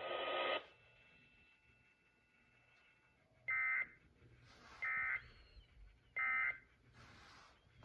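Emergency Alert System end-of-message signal from a Sage EAS encoder/decoder: three short, harsh digital data squawks of the SAME "NNNN" code, evenly spaced about a second and a half apart. They mark the end of the relayed flash flood warning.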